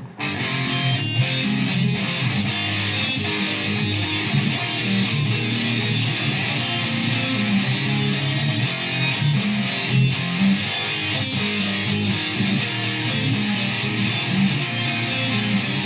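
Background music: a rock track with strummed electric guitar and a steady beat.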